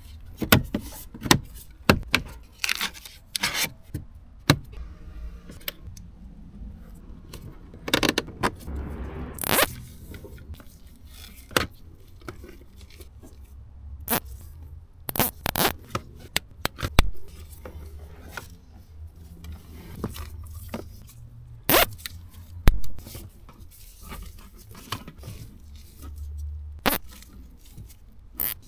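Gloved hands handling a car's wiring harness and connectors: irregular scrapes, rustles and sharp clicks of cables and plastic.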